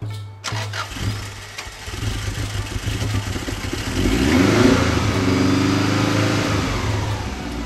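Subaru Impreza WRX (GC8) flat-four engine starting from cold after sitting unused for half a year. It builds up, revs with a rising pitch around four seconds in, then runs steadily at a fast idle.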